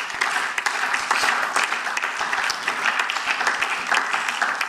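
Lawmakers applauding: steady clapping from many hands.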